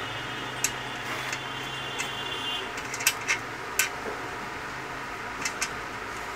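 Sharp metal clicks and clinks, scattered irregularly and loudest about three to four seconds in, as bolts and nuts are fitted and tightened on the treadle bracket of an iron sewing-machine stand.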